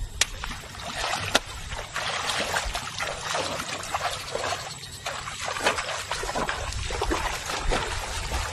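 Shallow water splashing and sloshing irregularly, with two sharp splashes near the start.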